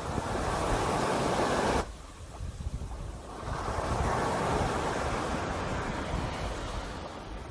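Sea waves surging onto the shore in two swells: the first cuts off suddenly about two seconds in, then a second wave builds and slowly eases off.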